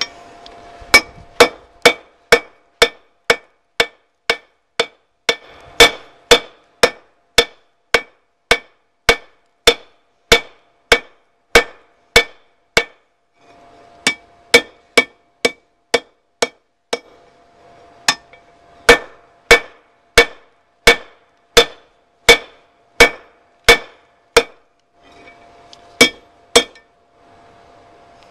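Steel hammer striking hot rebar on a steel anvil, about two sharp clanging blows a second, with the anvil ringing on between strikes. The hammering stops briefly a few times and resumes. This is hand forging: the red-hot bar is being flattened for a tong's hinge.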